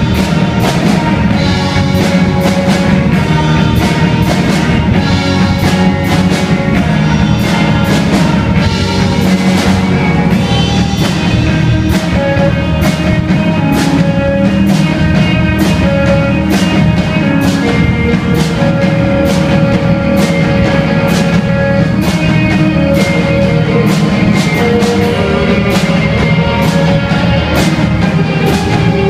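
Live rock band playing loudly: a steady drum-kit beat with cymbals, electric guitar, bass guitar and electric keyboard.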